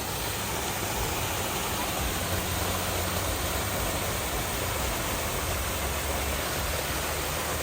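Wind blowing across the microphone on an open mountain peak: a steady rushing hiss with an uneven low rumble of buffeting underneath.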